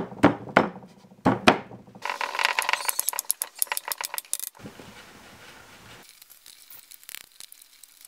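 Several sharp knocks on a wooden beehive box as its tight finger joints are knocked into place, then a fast run of clicking and a softer scraping as a screw is driven by hand screwdriver into a pre-drilled corner of the soft pine.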